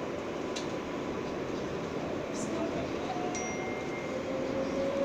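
R143 subway car running on elevated track past a station platform, heard from inside the car: a steady rumble with faint squealing tones that glide slowly in pitch in the second half, and a thin high ring starting past the middle.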